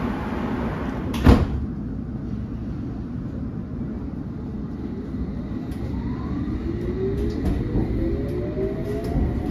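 London Underground train's sliding doors shutting with one sharp thud about a second in, over a steady low rumble. From about six seconds in, the train pulls away, its traction motors whining and rising in pitch.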